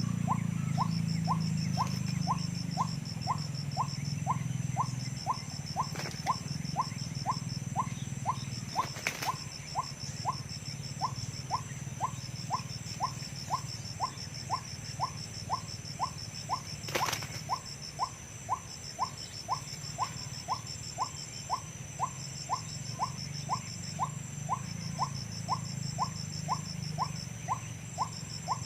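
White-breasted waterhen (ruak-ruak) call: a monotonous series of short rising 'kwak' notes, evenly repeated about one and a half times a second. A high pulsing trill comes and goes in bursts above it, over a low hum.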